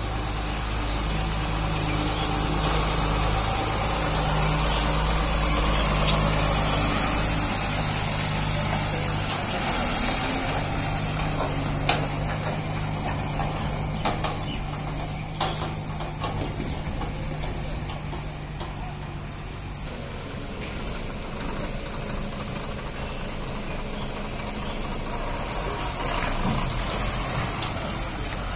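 Diesel engines of heavily loaded goods trucks running as the trucks pull slowly past one after another. The engine note holds steady for about ten seconds, then changes and grows weaker, with a few sharp knocks in the middle.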